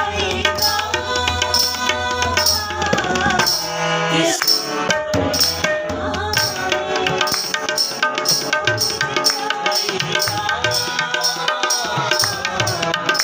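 Harmonium playing held chords under a man's singing of a Punjabi song, with hand drumming keeping a steady beat.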